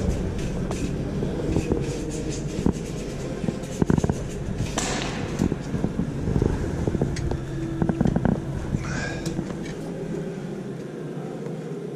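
Steady low mechanical hum with scattered metallic clicks and knocks and a couple of short scrapes, as the exhaust manifold flange faces are cleaned before new gaskets are fitted. The deepest part of the hum drops away near the end.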